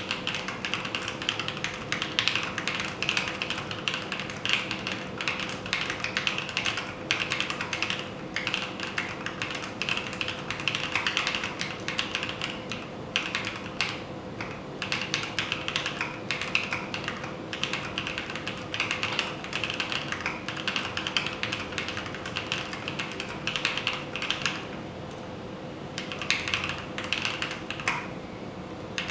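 Upgraded Keychron C1 mechanical keyboard being typed on quickly, a dense run of key clicks with a short pause near the end.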